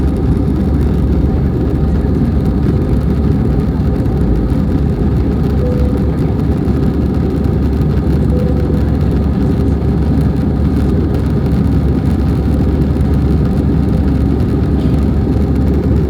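Steady engine and airflow drone inside the cabin of an Airbus A320 airliner in flight, climbing out after takeoff, with a deep, constant rumble and no change in pitch.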